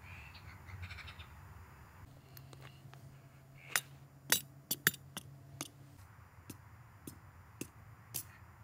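A crow cawing at the start, then an irregular series of about ten sharp clicks and knocks, the loudest in the middle.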